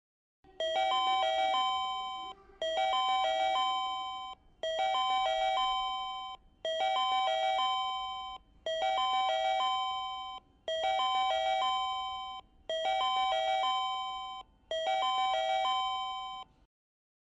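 Sotetsu Line station platform chime: a short electronic ding-dong phrase of a few notes, repeated eight times about every two seconds, then it stops.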